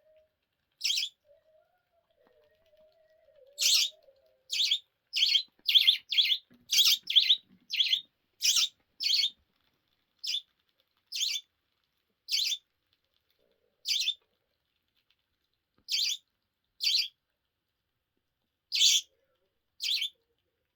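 Budgerigar giving short, sharp chirps, about twenty in all: a quick run of them between roughly four and nine seconds in, then single chirps about a second apart.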